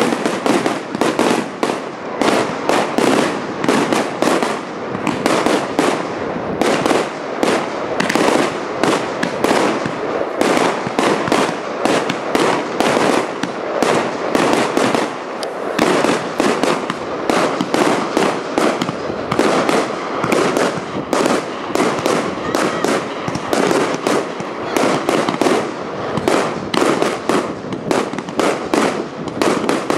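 Fireworks display: aerial shells bursting in a rapid, near-continuous barrage of bangs and crackling, several reports a second with no pause.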